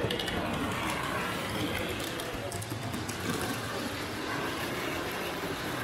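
Exhibition-hall ambience: a steady wash of indistinct background voices with a model train running on the layout's track, with a few faint clicks.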